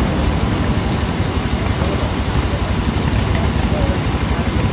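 Car engines idling in stopped traffic: a steady low rumble.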